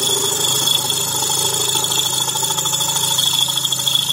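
Milling machine spindle running a 6.8 mm drill bit into the brazed-up metal of a cast iron motorcycle cylinder head: a loud, steady cutting noise with a high whine and a low hum underneath.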